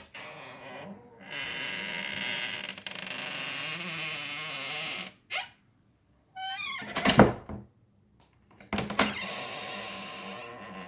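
Door opening: a long creaking, scraping noise, a click, then a short squeaky hinge creak wavering in pitch. A loud thud follows, and a second thud comes about two seconds later.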